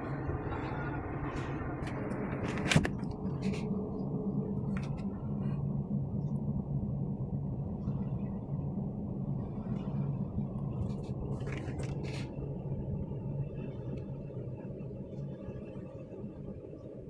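Small waves washing onto the beach with wind rumbling on the microphone, under a steady low drone of a tugboat's diesel engine pulling a barge. A sharp knock about three seconds in, with a few lighter clicks later.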